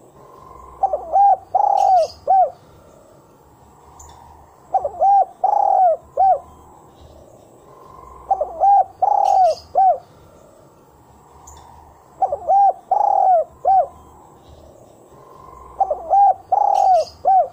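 Spotted dove cooing its song: a phrase of four or five short, arched notes repeated about every four seconds, five phrases in all.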